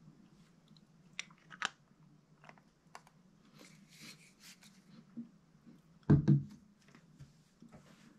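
Handling of a camera zoom lens and its plastic lens cap: sharp small clicks as the cap is fitted, light ticks and rustling, then two loud dull knocks about six seconds in.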